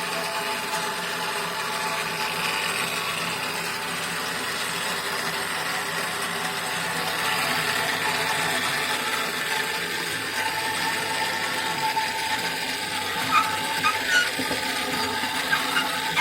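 An old electric drill mounted as a homemade drill press, its motor running steadily, with a few sharp clicks near the end.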